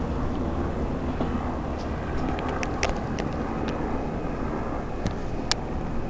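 Low, steady rumble of a departing Tobu 9000 series electric train receding down the line. A few sharp clicks come about halfway through and one near the end.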